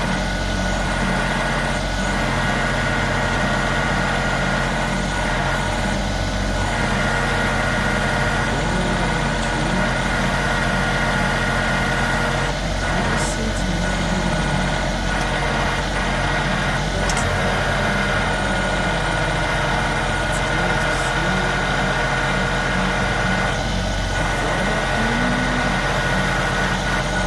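Compact tractor engine running steadily, with a steady high whine above the engine hum.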